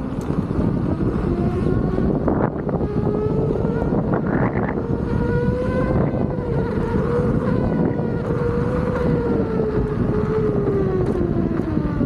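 Begode Master electric unicycle's hub motor whining, its pitch rising over the first few seconds, holding steady, then falling near the end as the wheel slows. Heavy wind noise on the microphone runs under it.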